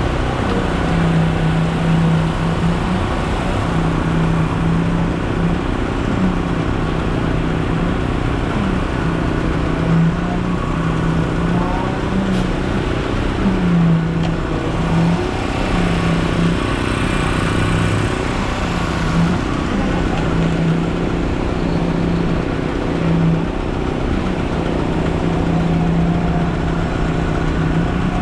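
Concrete mixer truck's diesel engine running steadily, its low tone shifting up and down slightly every few seconds.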